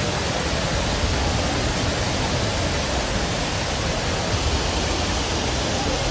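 Muddy flash-flood torrent rushing down a hillside channel, a steady unbroken noise of fast water, mixed with heavy rain.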